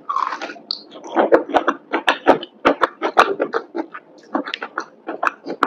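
Biting into and chewing a crispy breaded fried chicken cutlet, picked up close: a bite at the start, then crunching in runs of quick clicks, easing briefly about four seconds in before more crunches.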